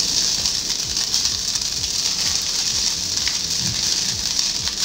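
Rice noodles sizzling in hot oil in a non-stick frying pan on a high heat: a steady crackling hiss.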